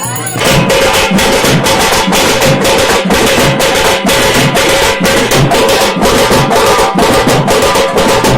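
Loud, fast drumming, dense drum strokes several times a second, with steady held tones over the beat.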